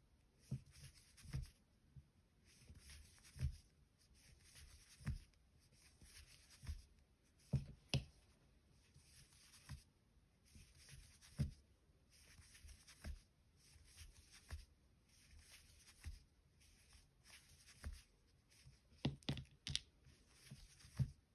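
Faint rustling and scratching of a 4 mm crochet hook being worked through plush chenille yarn, a brief scratch every second or two, with a few soft knocks from handling.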